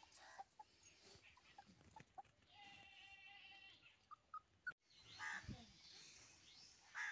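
Mostly quiet, with one faint, drawn-out animal call held at a steady pitch for about a second and a half, starting a little over two seconds in. A few short faint chirps and clicks are scattered around it.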